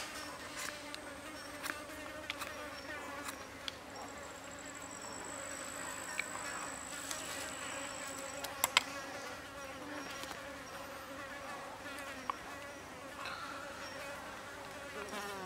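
Flies buzzing close by, a steady droning buzz that wavers in pitch. A thin high steady whine sounds for about four seconds in the middle, and a couple of sharp clicks come close together about nine seconds in.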